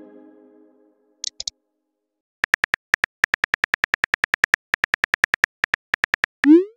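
Simulated phone-keyboard typing clicks from a texting-story app, a rapid run of sharp ticks starting about two and a half seconds in and stopping shortly before the end. A chime fades out at the start, and a short rising swoop sound effect begins at the very end.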